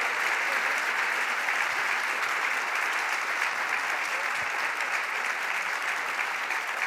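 A large seated audience applauding steadily, a dense patter of many hands clapping.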